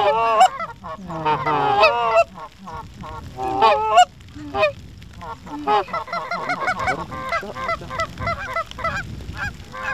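Canada geese honking, many overlapping calls; the loudest honks come in the first four seconds, then a busier, quieter chatter of quick honks and clucks from about six seconds on.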